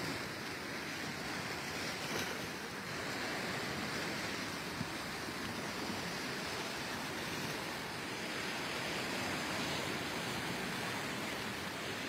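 Small sea waves washing and breaking in the shallows: a steady rush of surf.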